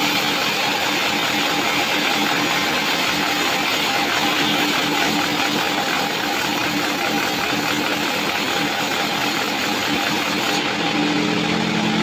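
Band sawmill running and ripping a large sengon (albasia) log into boards: a steady hiss of the blade cutting through the wood, with a low machine hum beneath.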